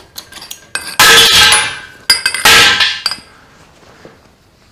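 A few quick clicks from a hydraulic bottle jack's pump handle, with the jack at the top of its travel. About a second in come two loud metallic clatters about a second apart, a loose steel rod falling onto the concrete floor.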